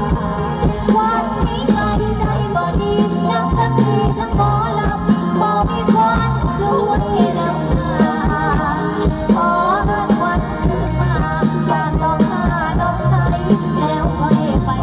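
Live mor lam band music with singing over a steady drum beat and bass line.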